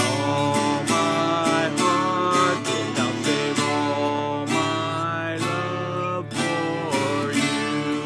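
Acoustic guitar played as an instrumental, strummed steadily with ringing chords and a melody line.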